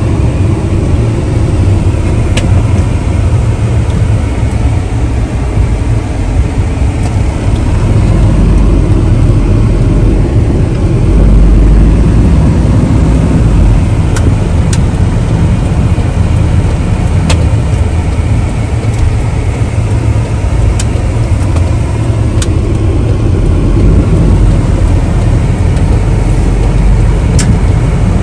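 Truck engine and road noise heard from inside the cab while driving: a steady low rumble that grows louder about a third of the way in, with a few faint scattered clicks.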